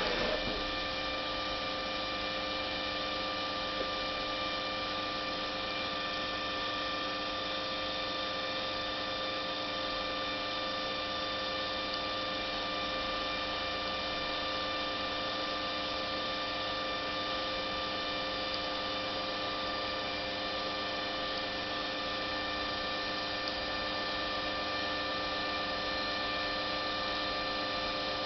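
Steady electrical hum with several constant high tones over a faint hiss, unchanging throughout.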